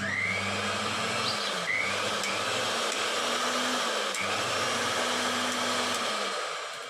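Mixer grinder's motor switched on, starting suddenly and running at full speed with a steady, loud whir, then winding down near the end: a test run showing the machine works again after its shorted power cord was repaired.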